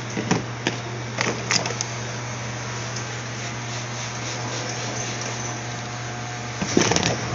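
Steady low electric hum, with a few short sharp clicks in the first two seconds and a louder, brief rustling clatter near the end.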